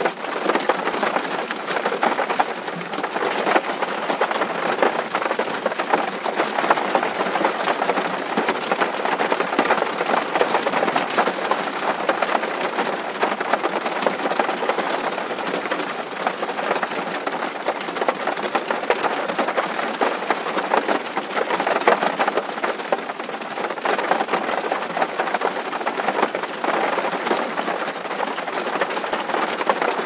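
Rain falling on a corrugated tin roof: a dense, steady patter of countless drops.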